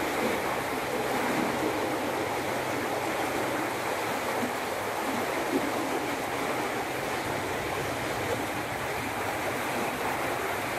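Shallow river rushing steadily over a stony bed in a riffle.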